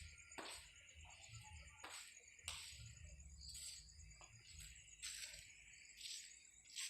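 Faint night ambience: insects trilling steadily, with scattered faint clicks and rustles.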